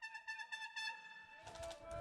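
A long, steady, high-pitched signal blast lasting about a second and a half, fading near the end, marking the end of the game.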